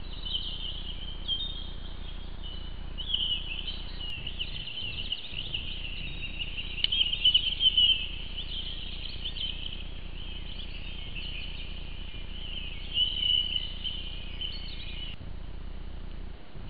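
Small birds chirping and twittering continuously, with a louder flurry around the middle, cutting off abruptly near the end.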